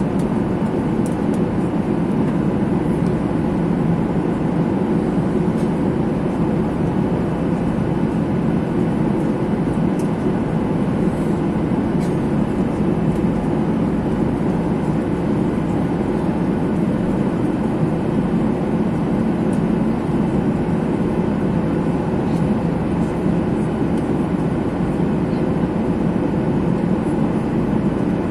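Steady airliner cabin noise: an even, low rush of engine and airflow that holds the same level throughout, with a few faint clicks.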